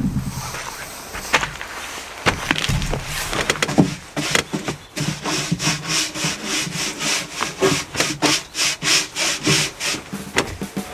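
A hand tool worked back and forth on wood in even strokes, about two to three a second, after a few separate knocks.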